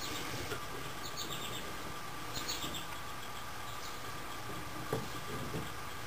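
Faint handling noises: light scratching and rustling with a few small clicks, the loudest click near the end, as hands work among the wiring behind the dashboard.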